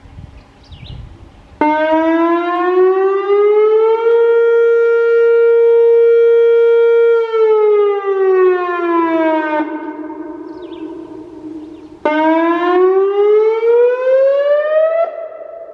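Whelen WPS-2802 electronic outdoor warning siren sounding. Its tone rises over about two seconds, holds for about three, then glides back down and cuts off with a lingering echo. After a couple of seconds it sweeps up again to a higher pitch and holds there.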